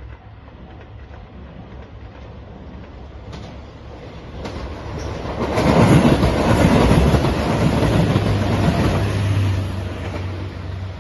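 JR Shikoku 2700 series diesel limited express train passing at speed: engine and wheel noise swell about five seconds in, stay loud for about four seconds, then fade as it goes by.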